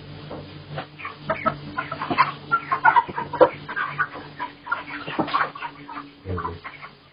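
Chickens clucking and squawking in short, irregular calls over a steady low hum, with a brief dull knock a little after six seconds.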